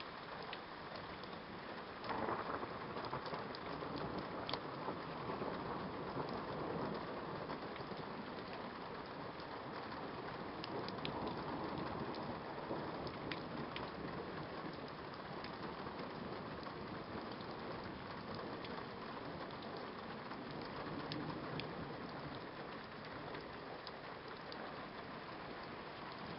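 Steady rain falling during a thunderstorm, with a roll of thunder that breaks in suddenly about two seconds in and rumbles on, slowly fading, for some ten seconds.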